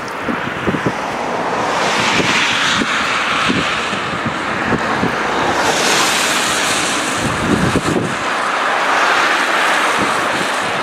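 The River Severn in flood, fast-flowing floodwater rushing with a steady hiss, with wind buffeting the microphone in irregular low thuds.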